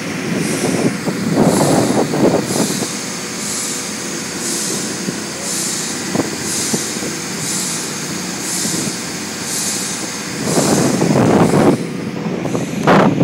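Steamboat's steam engine running, a hiss of steam repeating about once a second over a steady low rumble, with louder rushing swells twice.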